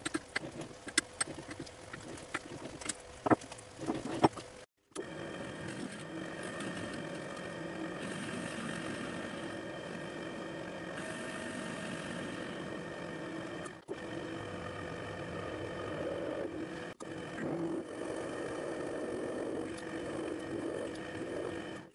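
Clicks and knocks of a four-jaw lathe chuck being turned and adjusted by hand while the bar is trued against a dial indicator. After a short break about five seconds in, a metal lathe runs steadily with a hum of several steady tones as it faces the end of a round bar and then centre-drills it from the tailstock.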